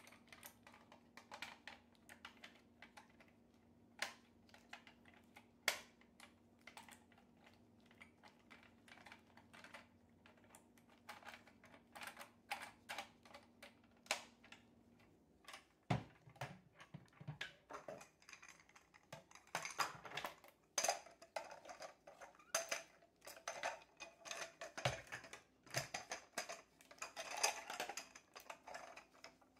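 Hard plastic toy parts clicking and clacking as a take-apart toy airplane's landing-gear leg and wheel are handled and fitted against its plastic fuselage. The light clicks are scattered at first and come thicker and faster about halfway through.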